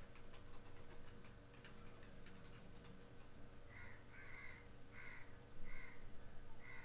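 Light clicking of computer keys being typed, followed from about halfway by five short, harsh calls in the background, spaced a little under a second apart.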